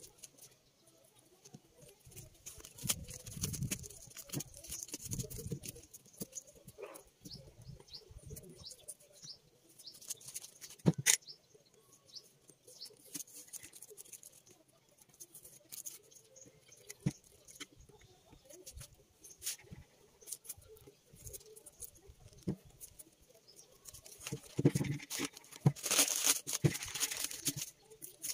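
Masking tape and paper being peeled and pulled off a painted metal fire extinguisher: crinkling paper rustles and scattered light clicks. There is one sharp click about eleven seconds in, and a louder stretch of rustling and tearing near the end.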